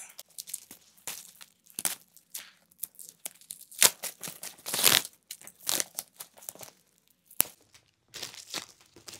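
Plastic packaging being pulled and torn off a handbag by hand, without scissors: irregular crinkling and tearing rustles with short pauses, the loudest bursts about four and five seconds in.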